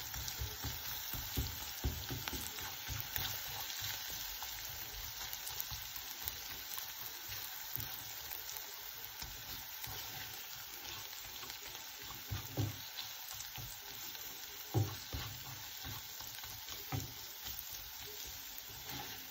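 Onions and ground soaked toor dal sizzling gently in oil in a non-stick frying pan over low heat, with a spatula scraping and knocking against the pan as it is stirred; a couple of louder knocks come past the middle.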